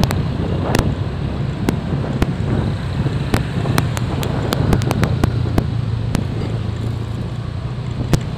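Motorcycle engines running steadily in slow road traffic, heard from a moving motorcycle with wind on the microphone. Many sharp clicks come at irregular moments over the hum, thickest in the first half.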